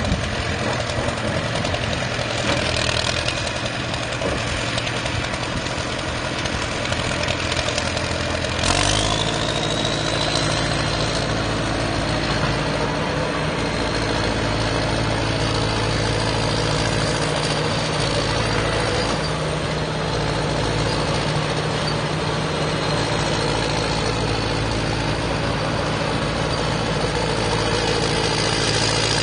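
Four-cylinder Cat diesel engine of a Cat 955 crawler track loader running steadily as the machine is worked. About nine seconds in there is a sudden change: the engine note grows fuller, and a high whine sets in that slowly climbs in pitch.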